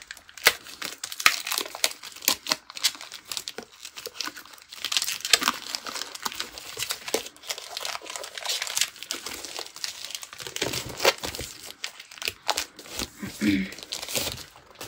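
Packaging crinkling and rustling as it is handled and pulled off, a dense, irregular run of crackles.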